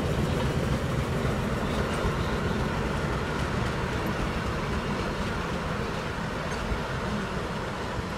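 Pakistan Railways diesel locomotive running with its train of passenger coaches through snow: a steady rumble of engine and rolling stock that slowly grows fainter.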